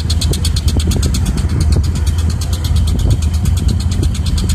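Diesel engines of a Caterpillar 320 excavator at work and a dump truck running: a steady low rumble with a fast, even ticking at about eight a second, and a few dull knocks.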